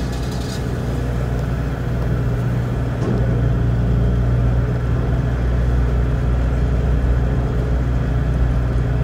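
Ferry's engines running with a steady low drone, growing louder about three seconds in as the vessel holds at the landing ramp.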